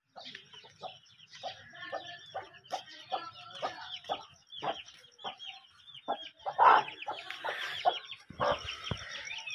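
Domestic chickens calling: a hen clucking in short calls while chicks peep over it in quick, high, falling chirps.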